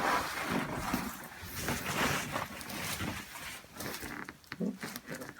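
Rustling and shuffling of a person shifting position on a padded chiropractic treatment table, with scattered soft knocks.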